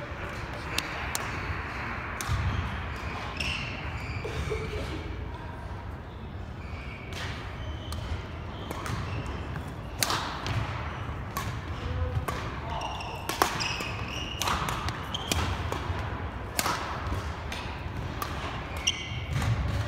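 Badminton rally on a hardwood gym court: sharp racket strikes on the shuttlecock at irregular spacing, sneakers squeaking and feet thudding on the floor, echoing in the large hall, with faint voices in the background.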